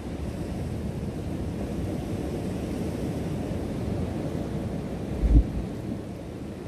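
Ocean surf washing over the rock shelf, a steady low rumble with wind on the microphone. A short, loud, low thump about five seconds in.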